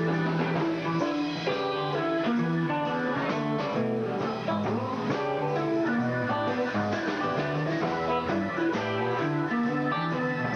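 Live rock band playing: electric guitar lines over a moving bass line, with a bluesy feel.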